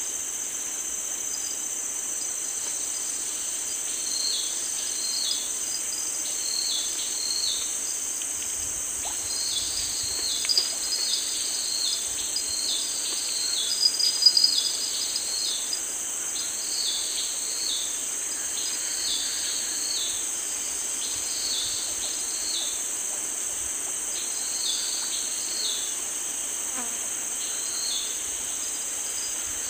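Steady high-pitched chorus of insects, with short chirps repeating in groups over it.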